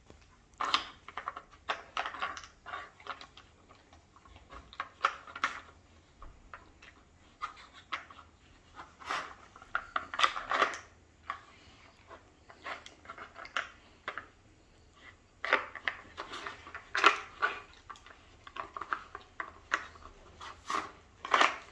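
A husky working a wooden treat puzzle with its nose: irregular clacks and knocks of wooden pegs and sliding pieces being pushed and lifted, coming in clusters with short pauses between.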